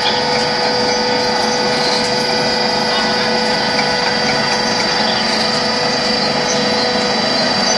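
LY6-30 mobile concrete block-making machine running steadily, a constant mechanical drone with a steady mid-pitched hum and a thin high whine through it.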